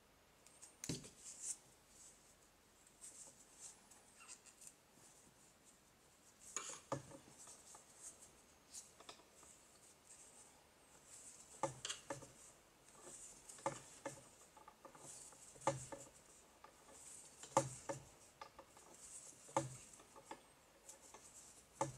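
Faint rustling of yarn and a crochet hook being worked stitch by stitch through single crochet, close to the microphone. Small sharp clicks come about once every two seconds in the second half.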